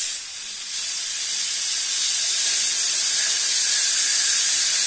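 Compressed air hissing steadily through a hose into a filter element submerged in oil, blowing the filter through at no more than 1.5 atmospheres to purge it.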